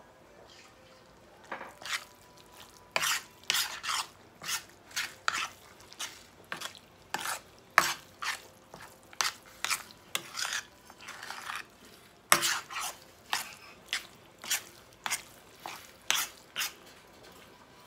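A spoon stirring and scraping through a ground-meat mixture in a large stainless-steel skillet, in a run of uneven strokes about two a second that begins about a second and a half in.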